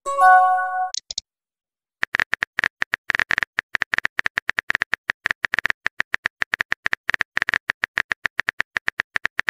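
A short phone chime of a few held notes as a new text message pops up, then about a second later a long run of phone keyboard tap clicks, about eight a second, as a reply is typed out.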